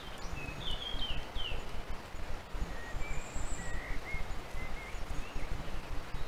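Wind rumbling on a trail camera's microphone in woodland, with a few short, high bird chirps, some gliding downward.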